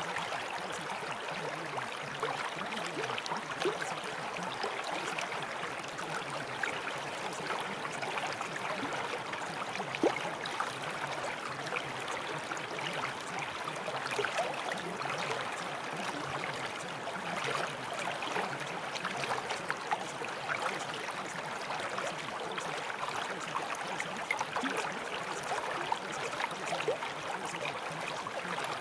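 Steady running water, like a babbling stream, with small splashes and drips through it.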